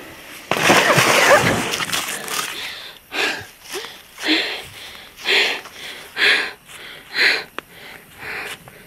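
A person gasping for breath: one long, loud strained gasp in the first couple of seconds, then short, sharp breaths about once a second.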